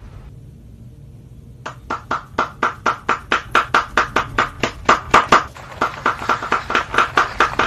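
Rapid, even tapping, about five sharp strikes a second, starting about two seconds in and growing louder and denser towards the end.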